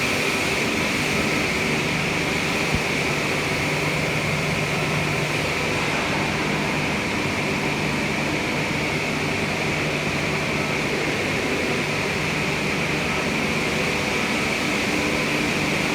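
Steady, unchanging drone of running industrial machinery, with a constant high whine on top of a low hum, and one light click a few seconds in.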